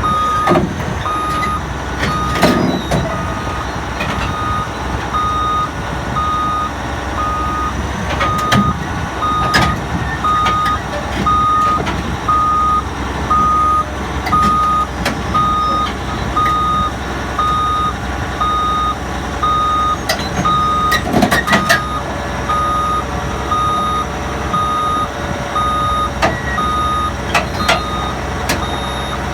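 Heavy-equipment backup alarm beeping steadily, about one beep a second, over a diesel engine running, with a few loud metallic clanks, as the bulldozer is backed off its trailer.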